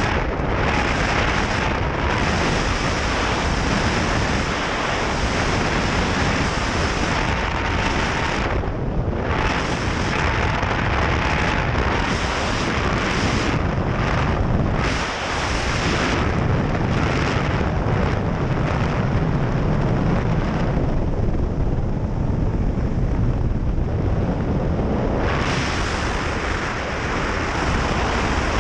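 Airflow buffeting the camera's microphone as a tandem pair descend under an open parachute canopy: a loud, continuous rushing that thins out in the upper range several times, longest about two-thirds of the way through.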